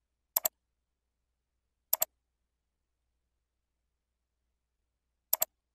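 Computer mouse clicking three times, each click a quick press-and-release pair, with dead silence between.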